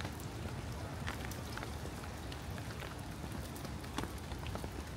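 Steady rain falling, with many small drops ticking sharply and irregularly close by, over a low rumble.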